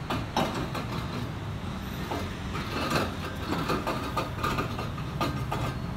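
Brake disc rotor being handled and fitted onto a car's front wheel hub: scattered metallic clinks and light knocks of the disc against the hub, over a steady low hum.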